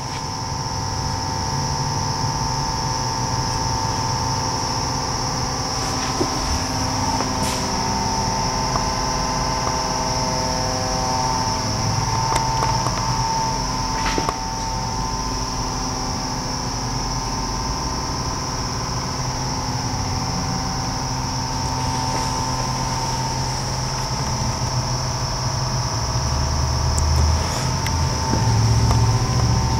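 Steady mechanical hum with a constant high-pitched whine and several steady tones, a few faint clicks, and a deeper rumble growing louder near the end.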